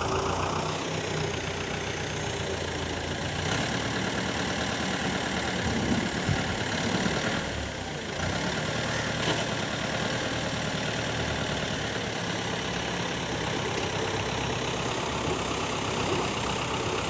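New Holland farm tractor's diesel engine running steadily as the tractor pushes and levels soil with its front blade. It grows a little louder for a few seconds about midway through.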